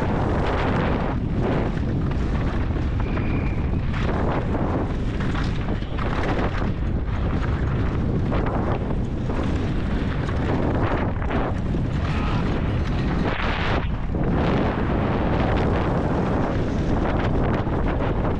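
Downhill mountain bike at race speed over a rocky gravel track: heavy wind rush on the microphone over the rumble of tyres on loose stones, with frequent short knocks and clatter as the bike hits rocks.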